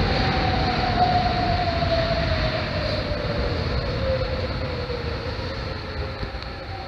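Sapporo Namboku Line rubber-tyred subway train running and slowing, heard from inside the car: a steady rumble with a motor whine falling steadily in pitch as the train brakes into a station.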